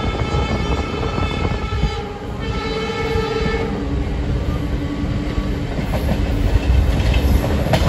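Train horn of the hauling WDP4B diesel locomotive sounding from the moving train, a steady chord broken briefly about two seconds in and ending about three and a half seconds in. Under it the train's wheels rumble and clatter on the track, with a sharp click near the end.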